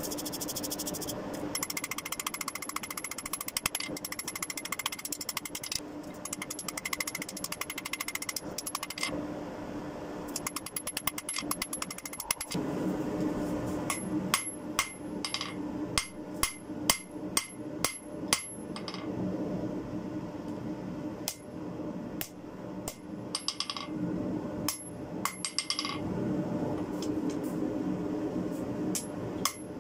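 Hammer blows on red-hot spring steel on an anvil, the anvil ringing with each strike. A quick run of light blows comes first, then after a lull come heavier separate blows about twice a second, growing sparser toward the end.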